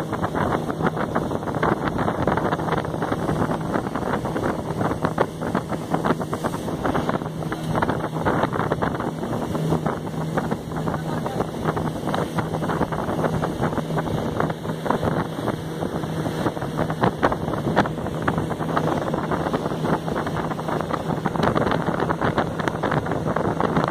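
Open launch's outboard motor running steadily at speed, a low drone under the rush of water along the hull, with wind buffeting the microphone throughout.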